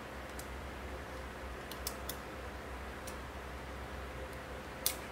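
Small, sparse metallic clicks as the tip of a can opener pries the thin retaining clip out of a Gerber MP600 multi-plier's handle, the clearest click near the end.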